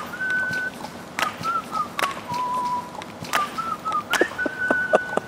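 A whistled tune: short quick notes and a few longer held ones, dipping lower in the middle, with sharp clicks between the notes.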